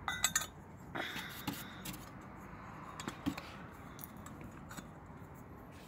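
Light handling noises as parts are moved and set against a styrofoam box: a quick run of sharp clicks at the start, a brief rustle about a second in, then scattered small knocks.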